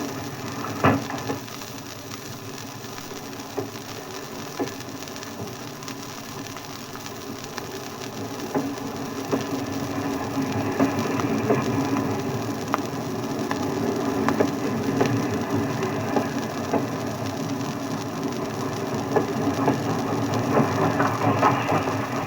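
Steam-era train at a station platform: irregular metallic clanks and knocks over a rumbling clatter that builds steadily from about a third of the way in.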